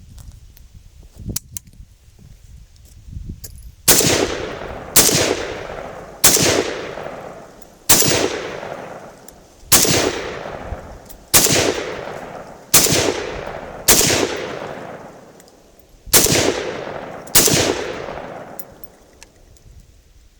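Zastava ZPAP M85 AK pistol in 5.56/.223 firing ten semi-automatic shots, one every one to two seconds, each sharp report trailing off in a long echo. A few faint clicks come before the first shot.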